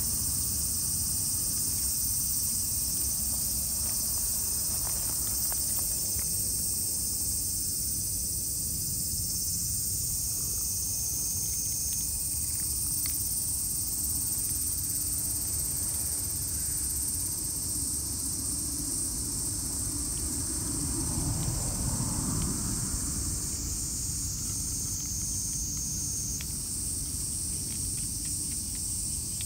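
A steady high-pitched chorus of insects, with a low, steady rumble of background noise beneath it.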